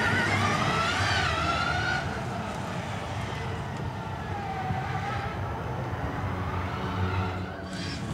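Electric rallycross car's drive motor and gearbox whining, the pitch rising and falling with throttle and speed through a corner. The whine fades after about two seconds and comes back faintly in the middle, over a steady low rumble.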